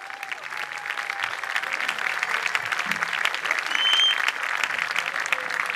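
Large audience applauding steadily, with one short high whistle from the crowd about four seconds in.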